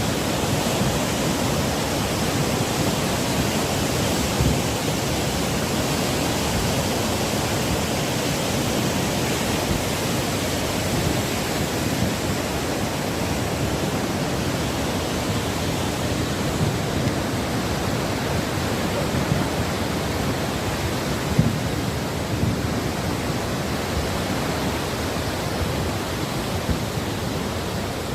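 A steady, loud rushing water noise from heavy rain and runoff, even and unbroken, with a few faint knocks here and there.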